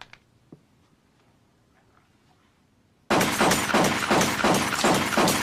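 Applause dies away into near silence. About three seconds in, a sudden rapid string of gunshots begins, several a second, with shattering among them.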